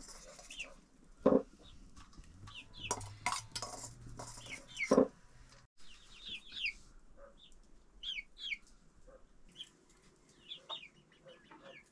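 Chickens clucking and chirping in short, high, falling calls, with two loud sharp knocks, about a second in and near the middle, and lighter clatter of kitchen utensils.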